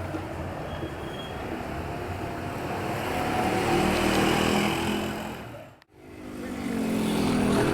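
Street traffic: a motor vehicle's engine grows louder and passes about four seconds in, over a steady bed of traffic noise. The sound drops out for an instant about six seconds in, then another engine comes up near the end.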